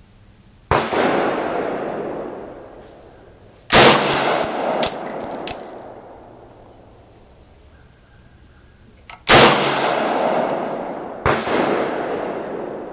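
Four rifle shots from an AR-15, each cracking out and rolling away in a long echo, with the first two about three seconds apart and the last two about two seconds apart. A few light metallic clinks follow the second shot.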